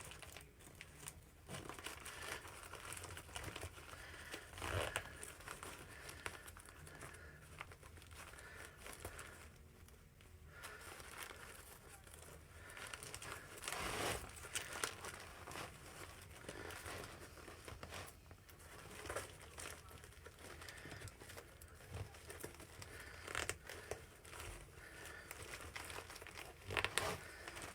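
Plastic-wrapped first aid supplies crinkling and rustling in the hands as a larger compression bandage is crammed into an already full kit pouch, with scattered soft clicks and handling knocks.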